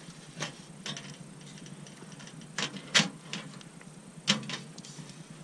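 Irregular knocks and clanks of dry sticks against the sheet-metal door and firebox of a small wood stove as they are fed in to revive a dying fire. The loudest knock comes about three seconds in and another just past four seconds.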